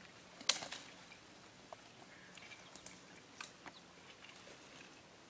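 Sharp twig snap about half a second in, followed by scattered faint clicks and crackles of dry twigs and leaves underfoot in woodland brush.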